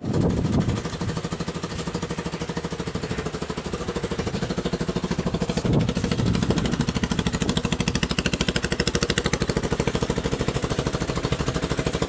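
Motorstar Z200 motorcycle engine running steadily, with a fast, even pulsing beat, and a single knock about six seconds in.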